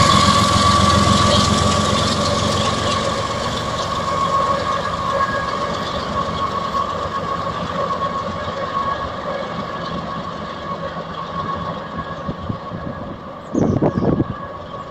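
GE ES44AC diesel-electric locomotive, pushing at the rear of a tank car train, passes and draws away. Its engine rumble, a steady high whine and the wheel clatter fade. A short low rumble comes near the end.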